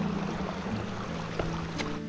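Background music with held low notes over the steady rush of a flowing creek. The water noise drops away near the end, leaving only the music.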